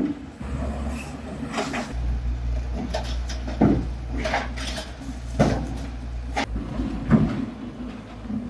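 Tata Hitachi hydraulic excavator demolishing reinforced-concrete columns: its diesel engine runs with a low steady drone while its bucket strikes the concrete, giving about six sharp knocks and clattering crashes of breaking concrete and falling debris at irregular intervals.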